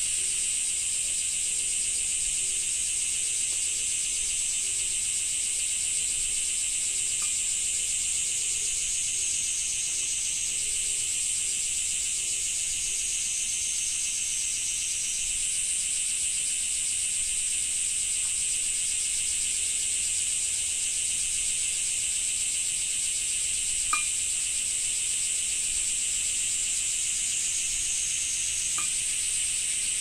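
Cicadas singing in a dense, steady, high-pitched summer chorus, its pitch shifting slightly now and then. A faint single click sounds about two-thirds of the way through.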